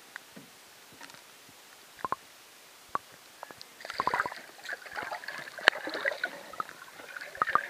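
Water splashing and bubbling heard through an underwater camera as a hooked trout thrashes at the surface: a few scattered clicks at first, then from about four seconds in a churning burst of splashes and bubbles with sharp clicks.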